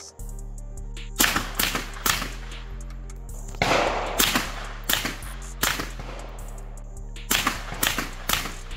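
CZ Scorpion EVO pistol-caliber carbine fired in quick single shots: about a dozen sharp reports in uneven strings of two to four, a fraction of a second apart. Background music with held low notes plays under the shots.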